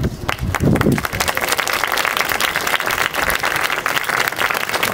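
A small audience applauding: dense clapping that builds about a second in and carries on.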